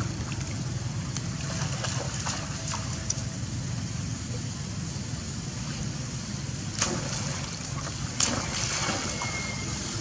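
Macaques swimming and splashing in water, sloshing throughout, with two sharper splashes about seven and eight seconds in. A steady low rumble sits underneath.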